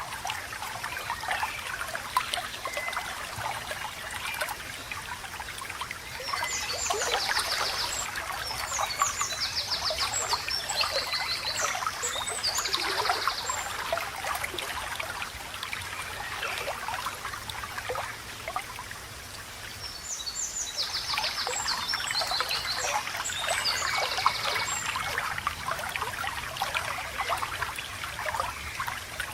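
A babbling stream trickling steadily over stones. Twice, about six seconds in and again about twenty-one seconds in, a songbird sings bouts of high, rapid trilled phrases over the water.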